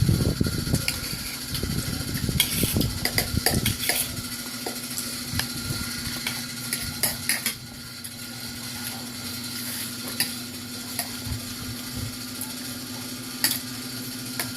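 Spoons and forks clinking and scraping against plates and bowls during a meal, in scattered short clicks that come thickest a few seconds in. A steady hum runs underneath.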